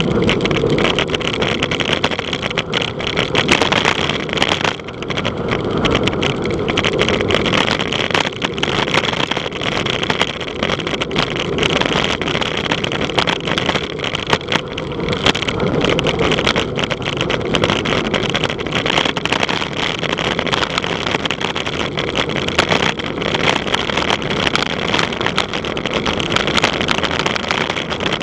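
Loud, steady wind rushing and buffeting over the microphone of a camera on a bicycle riding at speed.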